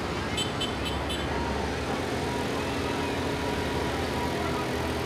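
Farm tractor engine running steadily as it passes at parade pace. A quick run of about five short, high jingling ticks comes about half a second in.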